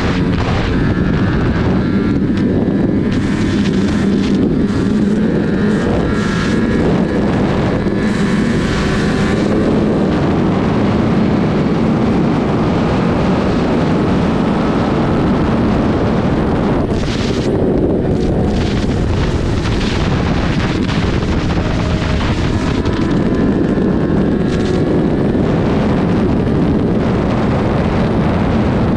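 Sport motorcycle engine running steadily at highway speed, heavily buffeted by wind rushing over the helmet-mounted microphone.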